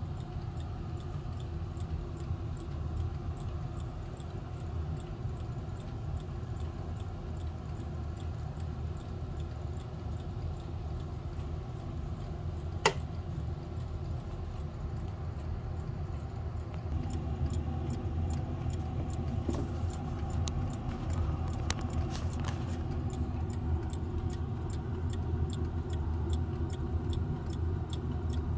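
Howard Miller 612-437 mantel clock movement ticking at an even rate over a steady low hum, the ticks growing louder about halfway through. One sharp click comes about 13 seconds in, with a few light knocks a little later.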